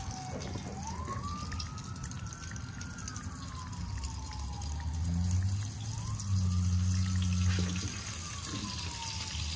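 Morel mushrooms sizzling and crackling as they fry in hot canola oil. A faint siren wails slowly up and down throughout, and a low hum swells in the second half.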